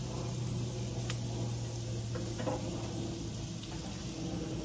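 A few light clicks and taps of handling at a gas grill, over a steady low hum.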